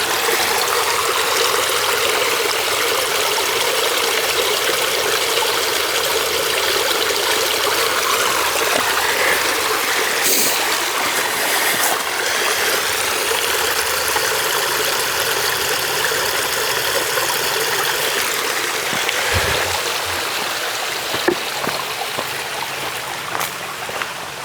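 Steady rush of flowing water, like a running stream or runoff, growing a little fainter about twenty seconds in, with a few faint knocks near the end.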